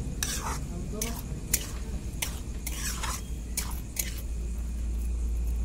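Metal spatula scraping and clinking against a steel kadhai as mushrooms are stir-fried, about seven short strokes at an uneven pace, over a steady low hum.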